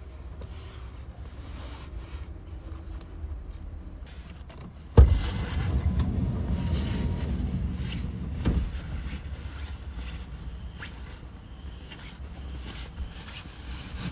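Bedding and a camp mattress being handled in a small car: rustling and shifting over a low rumble, with a sudden loud thump about five seconds in, a few seconds of louder handling noise after it, and another knock a few seconds later.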